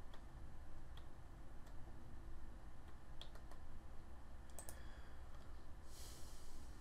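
Computer mouse clicks, about half a dozen scattered sharp clicks through the first five seconds, over a low steady hum. A brief soft hiss comes near the end.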